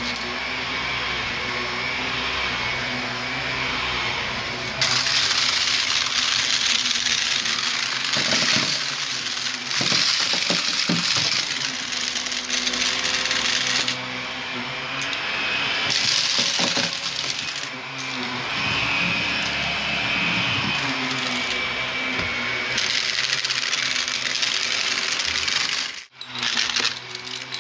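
Vacuum cleaner running, its motor humming steadily under a hiss of rushing air that swells and drops several times, with crunchy debris rattling as it is sucked up. The sound cuts out for a moment near the end.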